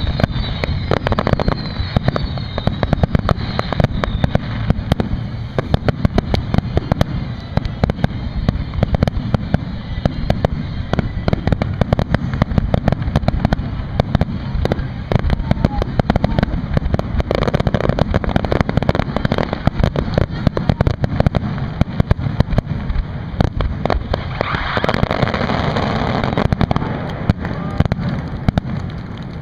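Fireworks display: a dense, continuous barrage of aerial shell bursts and bangs, many a second. About twenty-five seconds in a loud hiss rises over the bangs for a couple of seconds.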